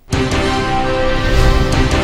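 TV news programme theme music, starting suddenly at full level with held chords over a dense low end.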